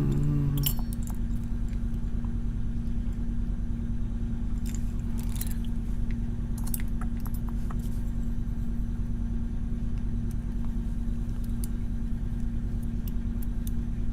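Scattered small metallic clicks and jingles of a key being worked in a Mul-T-Lock Junior cylinder as the plug is turned and lined up for removal, over a steady low hum.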